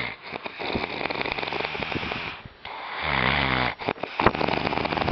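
A man snoring: rasping breaths, and about three seconds in a deep, rattling snore.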